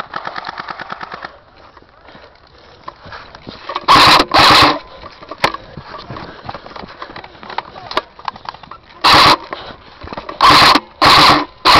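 Airsoft electric gun firing full-auto: a fast, even rattle of about fourteen shots a second that stops just over a second in. Later come several short, very loud noises, two about four seconds in and four close together near the end.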